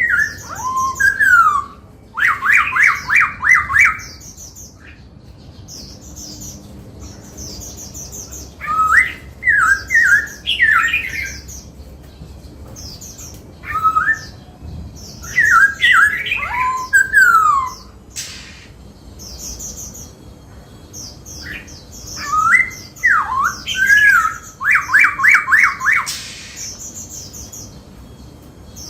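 Black-throated laughingthrush singing in loud phrases of slurred whistles and rapid runs of repeated notes, with short pauses between phrases.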